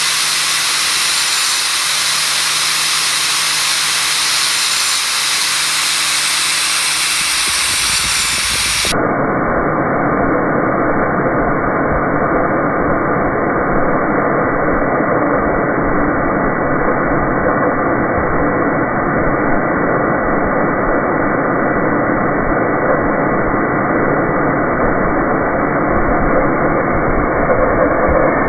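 Homemade bandsaw blade sharpener running: its motor-driven grinding wheel whirs steadily. Near the end the wheel grinds on a steel blade tooth.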